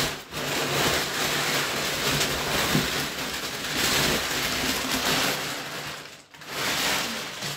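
Packing material rustling and crinkling as it is pulled out of a cardboard shipping box by hand, with a brief pause about six seconds in.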